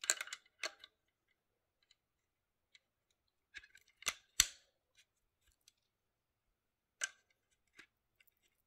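Pistol cartridges being thumbed one at a time into a Grand Power Stribog's double-stack magazine, each snapping down into place with a sharp metallic click. The clicks come in small groups: at the start, around four seconds in (the loudest), and about seven seconds in.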